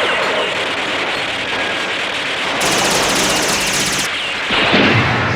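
Sustained automatic gunfire in a film shootout, overlaid with anime-style sound effects. A run of rapid, high, even clicking comes about two and a half seconds in, and a sudden loud burst about a second before the end.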